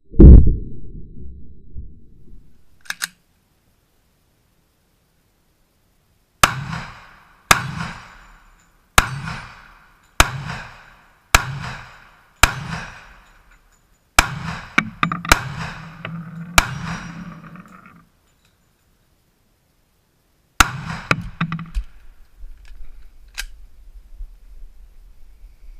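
Glock 29 Gen 3 pistol firing 10mm rounds, about a dozen sharp shots, each with a ringing echo. One comes right at the start, then after a pause a run of shots about one a second, then a few more near the end.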